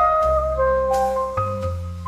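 Instrumental music in an orchestral arrangement: a melody of short pitched notes moving over long sustained bass notes.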